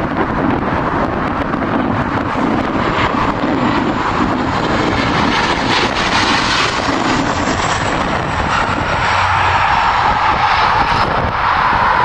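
Engines of a regional airliner landing, a loud steady noise that grows a little louder near the end.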